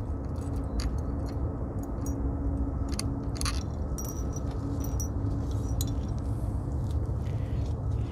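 Small metal parts clicking and clinking as the nut, chrome bezel and rubber collar are taken off the top of an electric car aerial and set down on paving: a scatter of sharp ticks over a steady low rumble.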